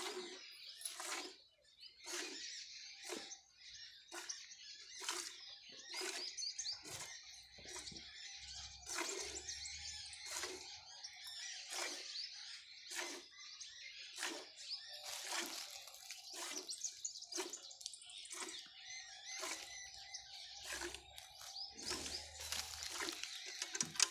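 Milk squirting from a cow's teats into a steel bucket during hand milking, a steady rhythm of roughly three squirts every two seconds. Birds chirp in the background.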